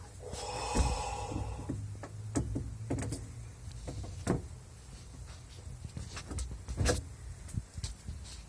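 Knocks and clicks from handling the plumbing under a kitchen sink, with a short squeak in the first two seconds, over a low steady hum.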